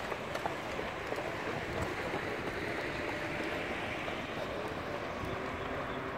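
Steady outdoor street noise, a continuous even rush, with a few faint taps from runners' footfalls as they pass close by.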